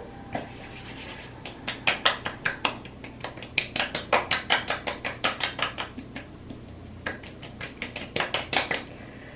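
Hands patting a skincare liquid (Paula's Choice exfoliant) into freshly washed facial skin, making quick soft slaps about four a second. The slaps come in two runs with a short pause between them.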